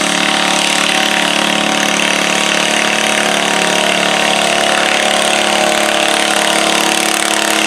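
John Deere stock garden tractor engine running steadily at high, even revs under heavy load while dragging a weight-transfer pulling sled through dirt.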